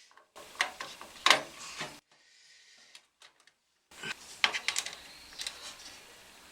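Sharp clicks, taps and light rubbing of small hard parts being handled while a desktop PC's processor is swapped in its CPU socket. A few clicks come first, then a near-silent pause of about two seconds, then a quick run of clicks.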